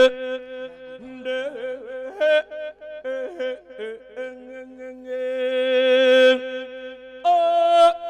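A Buddhist monk singing an Isan lae sermon into a microphone: one male voice in long drawn-out phrases, the pitch wavering and sliding on held notes between quicker ornamented runs, stepping higher near the end.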